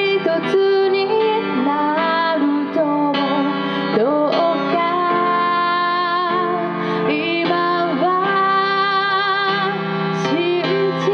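A woman singing a slow song into a microphone, holding long notes with vibrato, accompanied by an electronic keyboard, heard through a live PA.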